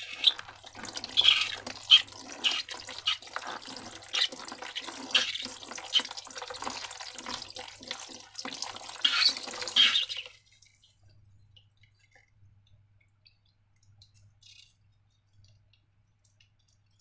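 Wet slime being worked by hand: irregular squelches and crackles for about ten seconds, then they stop and only faint small handling sounds remain.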